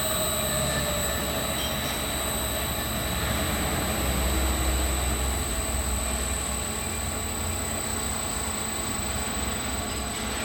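Industrial machinery running steadily, a constant high-pitched whine over a low rumble.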